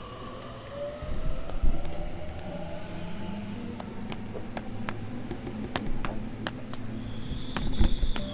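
Train moving through a station: a motor whine that glides in pitch, a quickening run of sharp clicks from the wheels over the rail joints, and a high steady squeal near the end.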